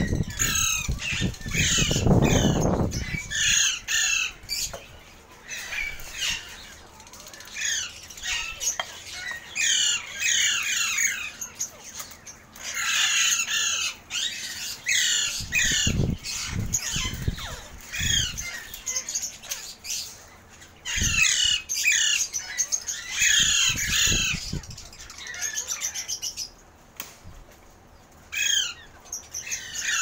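A flock of Alexandrine parakeets calling: clusters of short, harsh, repeated squawks that come and go throughout. A burst of low noise fills the first three seconds, and a few brief low thuds fall around the middle.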